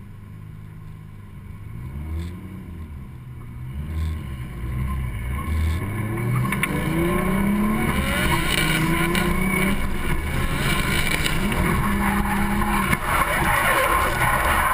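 Drift car engine revving, with a few blips early on. From about six seconds in it accelerates hard and gets louder, the pitch climbing and falling through gear changes. Rough tyre and wind noise swells near the end as the car speeds up and begins to slide.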